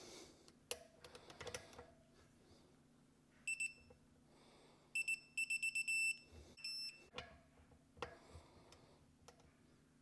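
Digital torque wrench beeping as the rotor bolts reach its 7 ft-lb setting, signalling target torque. It gives a single beep, then a quick run of short beeps, then another beep, with faint clicks of the tool on the bolts between.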